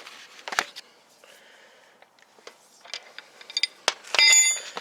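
Lug wrench working the car's lug nuts loose: scattered metal clicks and scrapes, then about four seconds in a loud metallic clank that rings briefly.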